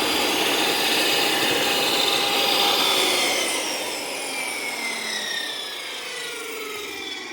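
DeWalt DW745 10-inch jobsite table saw cutting through a wood panel, then switched off, its blade and motor winding down with a whine that falls in pitch over the last four seconds. The owner calls the blade pretty dull.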